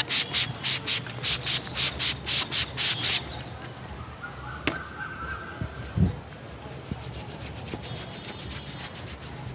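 A masseur's hands rubbing briskly over skin and hair, about three loud strokes a second for the first three seconds, then softer, faster rubbing; a single dull thump about six seconds in.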